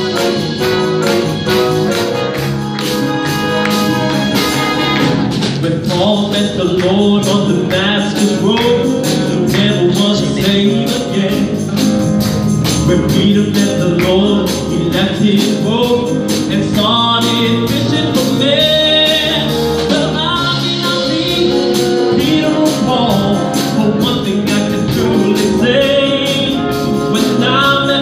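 Male gospel choir singing with a lead singer, over a steady percussive beat.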